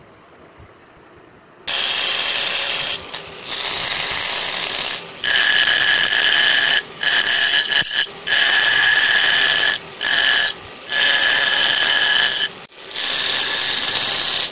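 Handheld electric rotary carving tool with a burr bit running and cutting into wood. It starts about two seconds in, then runs in bouts with a steady high whine, stopping briefly several times.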